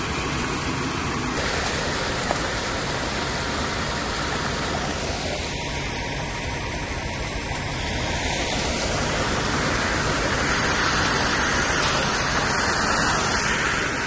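Ready-mix concrete truck running steadily, engine and rotating drum, with the load being mixed further. The noise grows a little louder about halfway through.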